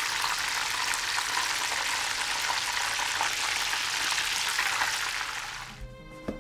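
Food frying in hot fat in a pan, a dense steady crackling sizzle that fades out near the end, where music with sustained notes comes in.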